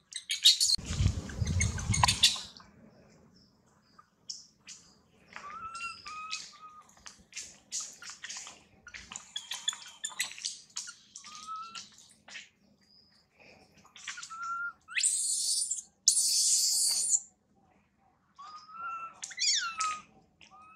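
Infant macaque giving short high squeaks over and over, some rising and falling near the end. A loud rustling noise comes in the first two seconds, and two harsh hissy bursts come about two-thirds of the way through.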